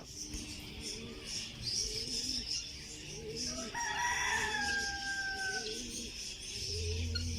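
A rooster crowing once, a long call of about two seconds in the middle, its pitch sagging slightly toward the end, over a steady high hiss.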